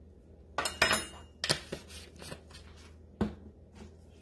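Kitchen clinks as a metal spoon and spice jars are handled among bowls: a quick cluster of sharp clinks, one with a brief high ring, in the first second and a half, then a single knock about three seconds in.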